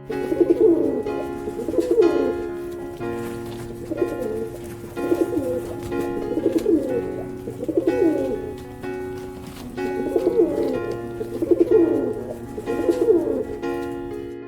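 A bird giving low calls, each about half a second, repeated roughly ten times over about fourteen seconds, over steady background music.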